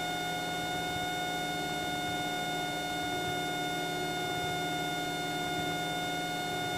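Steady in-flight drone of a Cessna 172's engine and propeller in the cabin, with a steady whine over it.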